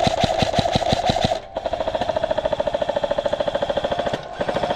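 Krytac Trident MKII CRB-M electric airsoft rifle firing full-auto: the gearbox cycles rapidly with an even train of clicks over the motor's whine. It fires three long bursts, breaking off briefly about a second and a half in and again near the end.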